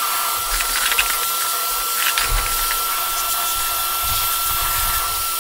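Canister shop vacuum running steadily with a high, even whine as its hose nozzle sucks dust from the empty taillight opening.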